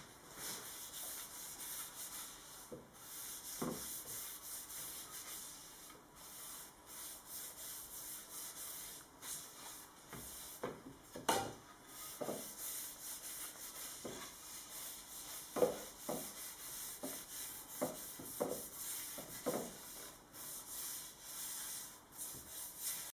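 A paintbrush swished back and forth over a wooden canoe paddle blade, brushing on a finish in repeated scratchy strokes. A handful of louder short scrapes come in the second half.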